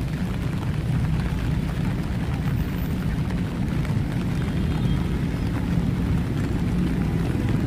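Steady rain falling over the low, continuous rumble of city road traffic.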